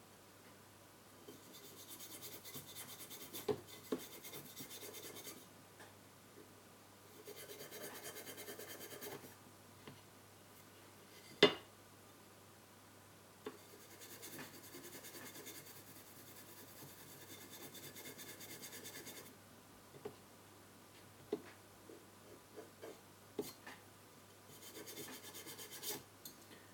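Fast scratching and scrubbing strokes as a burnt spot on a part inside a car stereo is scraped clean, in several bouts of a few seconds each. Scattered light clicks between bouts, with one sharp click about halfway through.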